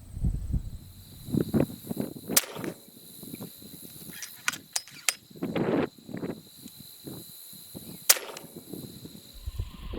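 FX Dreamline PCP air rifle firing twice, two sharp cracks about six seconds apart, with a few lighter clicks and low handling or wind noise between.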